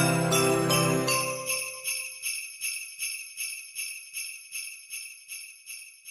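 Christmas background music with sleigh bells shaking in a steady beat. The tune dies away about two seconds in, and the sleigh bells carry on alone, growing fainter.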